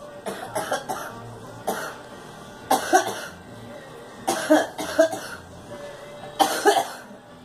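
A girl coughing in repeated bouts of short, sharp coughs, two or three at a time, about five bouts.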